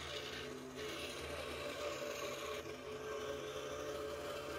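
Scroll saw running steadily, its reciprocating blade cutting through a wooden board.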